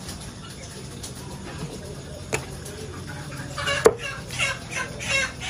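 A cleaver chopping through a raw chicken onto a thick wooden chopping block: two sharp chops, the second louder, about halfway through. Then a chicken clucking in a quick run of short calls.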